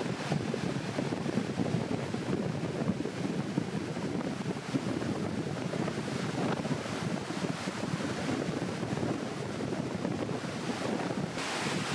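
Wind buffeting the microphone over the steady rush of ocean surf. The sound turns brighter and hissier about half a second before the end.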